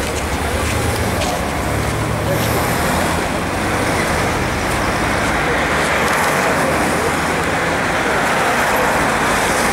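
Road traffic going by: steady engine and tyre noise from passing cars, with a low engine hum in the first few seconds.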